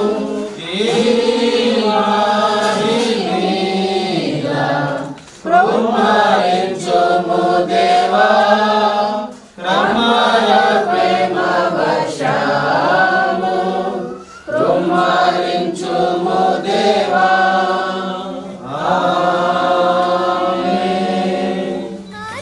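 A group of voices singing a hymn without accompaniment, in phrases of a few seconds separated by short breaks.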